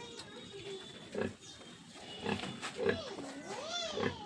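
Pigs grunting and squealing in several short, loud bursts.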